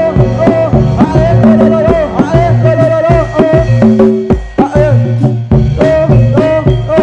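Live jaranan dance accompaniment: drums beating steadily under a wavering sung or blown melody line, with a brief lull a little past four seconds in.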